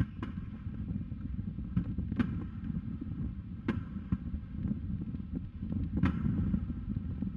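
Distant aerial fireworks shells bursting: a few separate booms, a second or two apart, over a steady low rumble.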